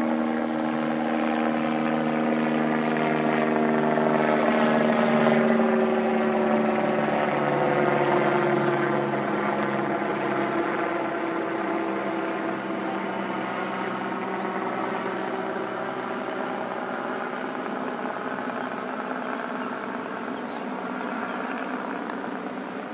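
An aircraft passing over: a steady engine drone with many overtones that slowly falls in pitch, loudest about five seconds in and then gradually fading.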